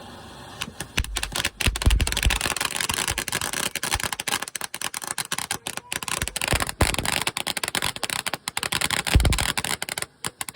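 Firework crackling: a dense, irregular run of rapid pops and crackles that starts under a second in and keeps going, with a couple of heavier thumps.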